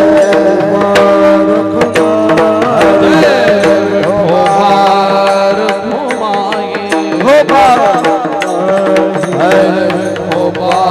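Devotional kirtan singing: a voice sings a wavering melody over a steady held drone, with frequent percussion strokes throughout.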